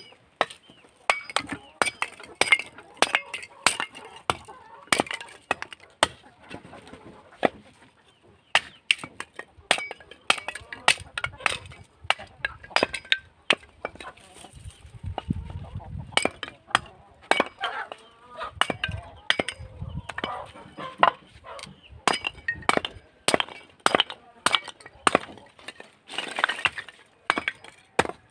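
An axe splitting old dry boards into small kindling: a run of sharp wooden cracks and knocks, irregular, about one or two a second, with a short let-up about halfway through.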